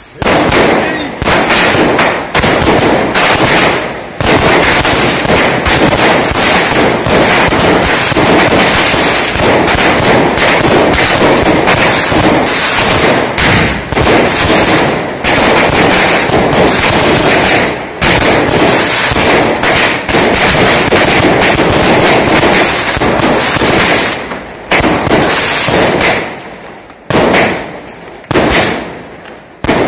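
Consumer fireworks cake firing shell after shell in rapid succession. Launch bangs and aerial bursts crackle almost without a break, then thin to a few separate bangs over the last several seconds.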